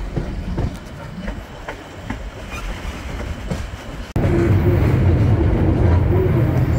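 Passenger train coaches rolling along the track, their wheels clicking over the rail joints. About four seconds in the sound jumps to the much louder, steady rumble heard aboard the moving train.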